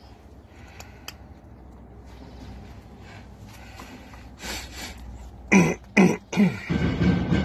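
Coughing: three sharp coughs about half a second apart in the second half, running into rougher hacking throat-clearing.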